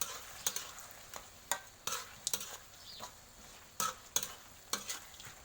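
Stir-fry of frog curry being stirred in a pan, the utensil clacking and scraping against the pan at an irregular pace over a faint sizzle.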